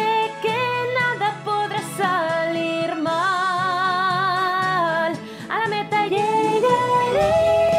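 A song: a female voice singing long, wavering held notes over instrumental backing. A long steady final note begins near the end as the bass comes in.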